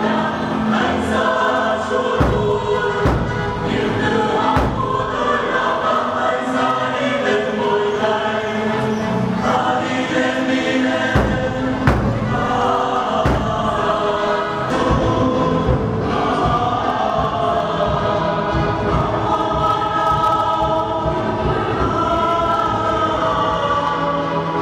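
Church choir singing a hymn, many voices together, with a few low thuds about two, three and eleven seconds in.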